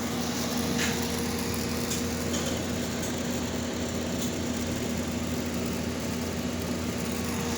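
2015 GE 11,000 BTU wall air conditioner running: steady fan blowing with a constant low hum underneath.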